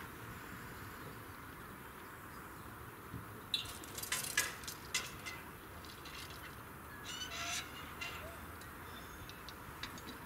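Small birds chirping in short, irregular clusters over a quiet outdoor background.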